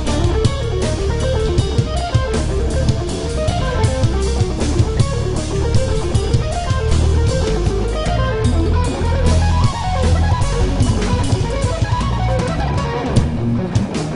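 Live band music: a semi-hollow-body electric guitar plays a fast run of notes over a drum kit and an electric bass.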